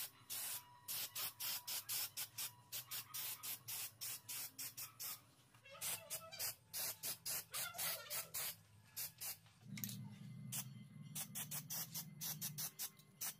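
Aerosol spray can sprayed in many short bursts, each a hiss of a fraction of a second, a few per second with a brief pause about five seconds in.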